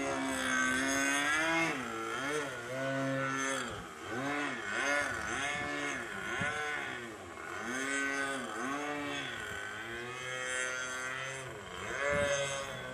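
OS 55AX two-stroke glow engine of a Primo 40 3D profile model plane, its pitch swinging up and down again and again as the throttle is worked through aerobatic manoeuvres.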